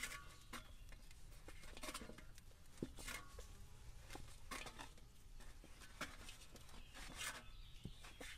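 Dough being kneaded by hand in a stainless steel bowl: faint, irregular soft squishes and presses, roughly one every half-second to second.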